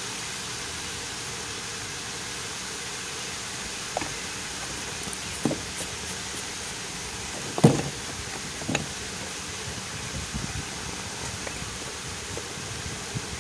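Steady hiss of sliced squash cooking in oil in a hot non-stick fry pan. A few short knocks come through it, the loudest a little past the middle.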